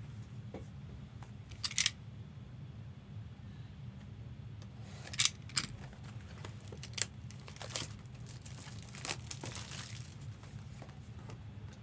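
Trading card box and its packs being opened by hand: plastic wrapping tearing and crinkling in short scattered bursts, over a steady low hum.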